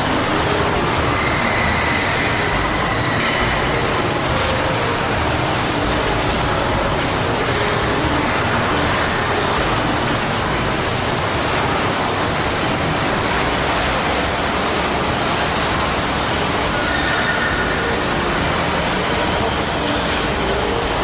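Steady, dense machinery noise of a meat-processing line's conveyors, a continuous rumble and hiss with faint high squeals near the start and again near the end.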